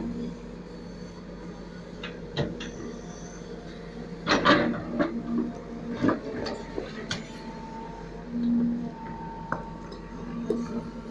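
Case backhoe loader at work: its diesel engine runs steadily and swells a few times under load, while the bucket scrapes and knocks against stones and soil. The loudest clatter of rock comes about four seconds in.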